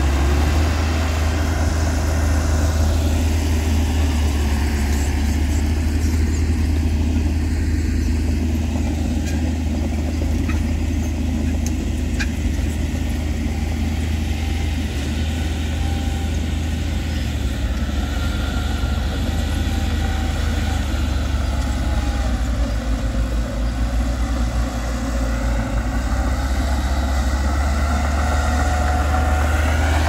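Diesel engines of small crawler bulldozers and dump trucks running together in a steady low drone, with an engine revving up near the end.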